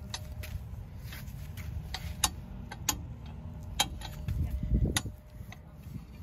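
Footsteps on a wet paved path: a few sharp, unevenly spaced clicks over a steady low rumble, which swells louder for a moment just before the last click.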